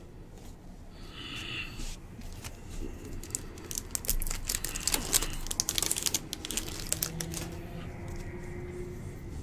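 A 2022 Bowman baseball card pack wrapper torn open by hand, crinkling and tearing in a run of sharp crackles from about three to seven seconds in.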